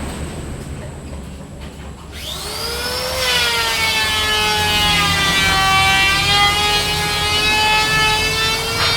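An electric power saw starts about two seconds in and cuts through wood with a steady whine. Before it starts there is a low rumble.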